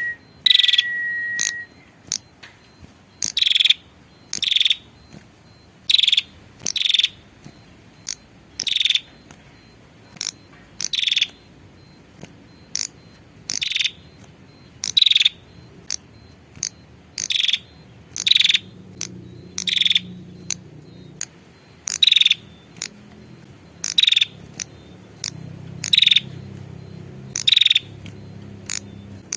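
A female prenjak (prinia) giving its lure call: short, sharp chipping notes repeated about once a second, often in quick pairs. A steady, thin whistled tone runs under the first second and a half.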